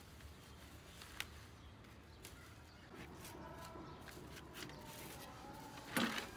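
Faint rustling and handling of leafy plant cuttings in a plastic crate, with scattered small clicks and a short louder scrape or knock about six seconds in.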